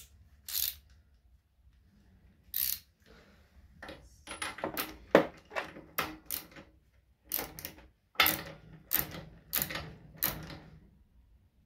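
Metal hand tools clicking and scraping as a spark plug is fitted and tightened into the Piaggio Quartz scooter's engine. Irregular short clicks, coming closer together in the second half.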